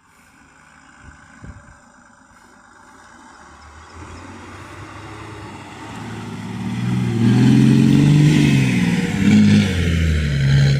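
Off-road 4x4's engine revving under load, growing louder from about four seconds in, with its pitch rising and falling.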